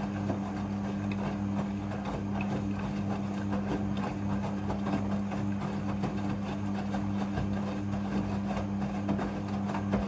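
Midea front-loading washing machine drum turning during the first rinse, wet clothes tumbling and water sloshing over a steady low motor hum.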